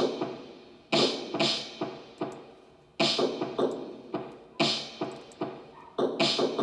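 Drums being played in a loose, uneven pattern, roughly one to three strokes a second, each hit ringing on briefly and fading before the next.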